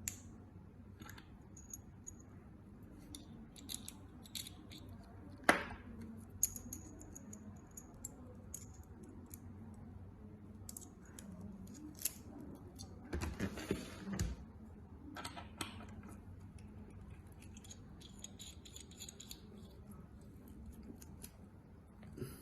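Light metallic clicks and taps of small metal parts and tweezers being handled, with one sharper click about five and a half seconds in and a short rattling clatter around thirteen to fourteen seconds.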